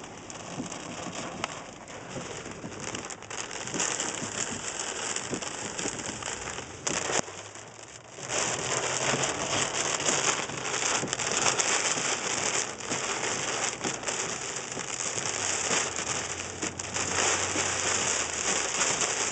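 Heavy thunderstorm rain pouring down, growing louder about eight seconds in.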